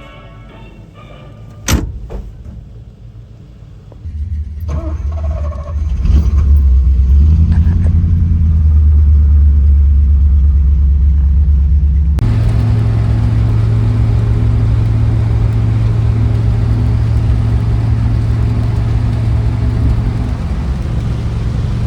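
Car engine running with a loud, steady low drone that comes in about four seconds in. It switches abruptly to a different steady hum about twelve seconds in. A single sharp click comes just before the engine sound starts.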